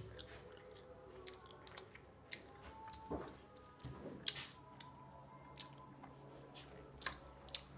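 Faint mouth noises close to the microphone: scattered wet clicks and smacks of lips and tongue, with a faint low hum in the second half.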